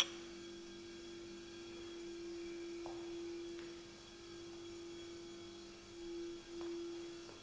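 A steady hum at one pitch, with a sharp click right at the start and a few faint ticks later.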